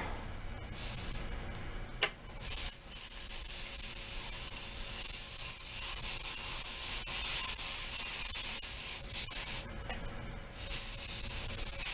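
Steady rubbing, scraping hiss, with a short break about ten seconds in.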